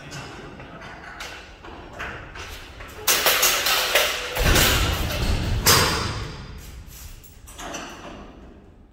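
Large metal hangar sliding door being rolled shut. A loud rolling rattle starts about three seconds in, turns heavier and deeper a second later, then fades away over the next few seconds.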